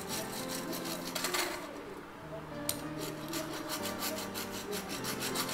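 Apple Pencil tip rubbing quickly back and forth on an iPad Pro's glass screen, a rapid rhythmic scratching of drawing strokes that eases off briefly about two seconds in.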